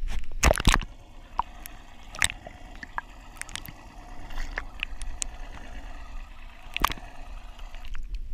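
Water gurgling and dripping under a string of sharp knocks and clicks, the loudest ones about half a second in and near seven seconds.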